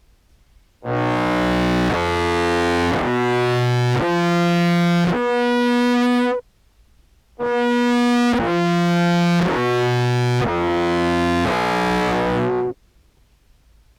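Low contrabass clarinet notes sent through an EHX POG2 octave/detune pedal into a Behringer Brassmaster fuzz, giving a thick, distorted tone. The notes are held for about a second each: one phrase steps upward, then after a short pause a second phrase steps back down.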